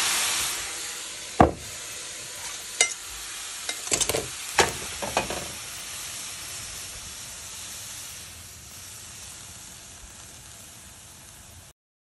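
Liquid sizzling hard in a hot frying pan as the steak drippings are deglazed for a jus. The sizzle is loud at first, then settles to a steadier, quieter sizzle. A utensil knocks against the pan a dozen or so times between about one and a half and five and a half seconds in, and the sound cuts off just before the end.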